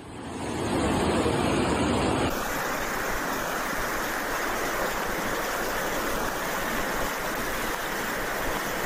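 Muddy floodwater rushing, a steady loud rush of water. About two seconds in, the sound changes abruptly to a brighter, hissier rush of water running down a flooded street.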